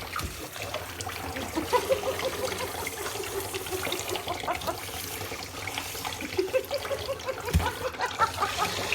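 Tap water running and trickling into a sink.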